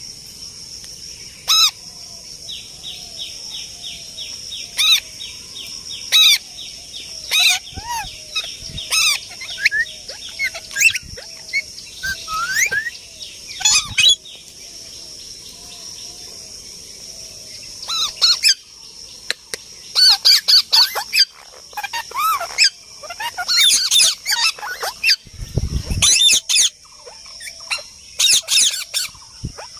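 Parrots squawking and calling, many short sharp calls at irregular intervals and more crowded in the second half, over a steady high background of bird chirping.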